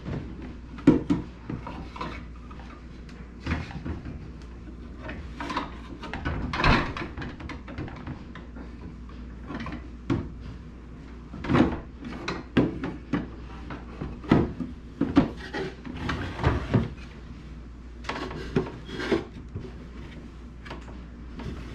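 Irregular knocks and clatter of the plastic ice maker and ice tray being handled and fitted back into a fridge freezer, over a low steady hum.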